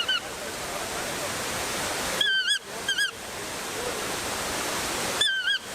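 Steady rushing of a large waterfall. About every three seconds come short groups of two or three wavy, chirping bird calls: once at the start, three times a little past two seconds in, and again near the end.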